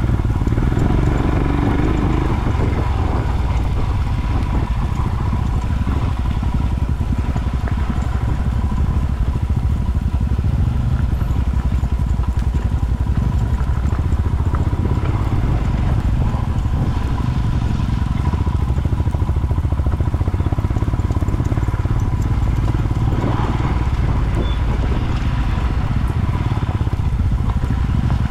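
Single-cylinder adventure motorcycle running steadily under way, with a dense low rumble.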